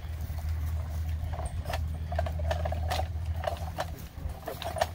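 Irregular metallic clicks and knocks from the crank jacks on a steel lifting frame being set up over a derailed scale locomotive.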